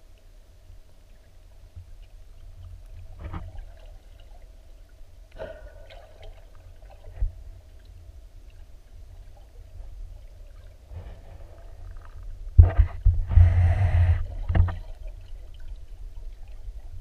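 Underwater sound of a mountain river, heard through a submerged camera: a steady low rumble of moving water with a faint hum. A few soft knocks come through, and about three-quarters of the way in there is a loud two-second burst of rushing noise with sharp knocks.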